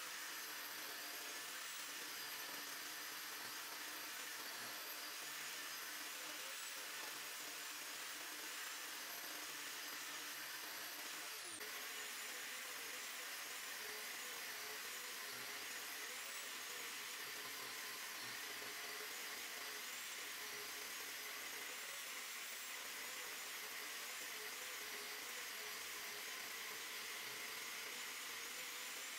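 Electric power tool motor running steadily under load: a faint whine that wavers slightly in pitch over a steady hiss.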